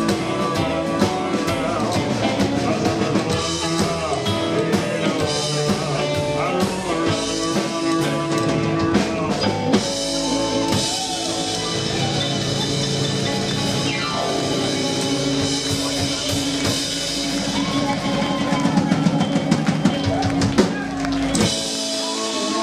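Live rock and roll band playing: electric guitar, upright double bass, drum kit and keyboard. The band stops near the end, with the bass dropping out suddenly.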